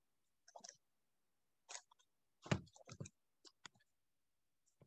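Near silence broken by a handful of faint, short clicks and ticks at uneven intervals, the loudest about two and a half seconds in.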